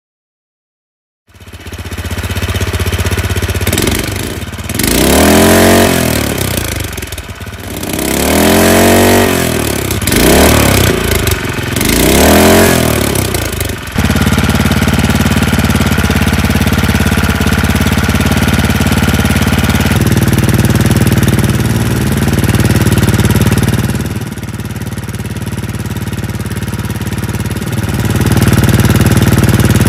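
Tecumseh HS40 single-cylinder four-stroke engine on a motorized bicycle, running just after a cold start at 40°F on 40-weight oil. It is revved up and back down about four times, then settles into a steady idle.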